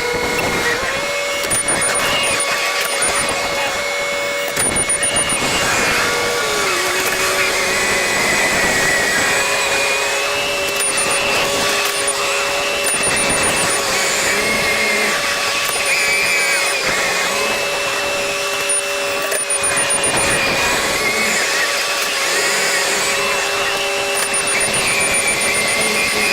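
Engine running steadily under load with a high whine; the pitch drops slightly about six seconds in.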